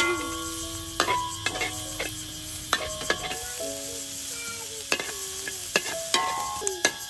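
Oil sizzling in a steel wok as chopped aromatics are stir-fried, with a metal ladle scraping and clinking against the wok again and again.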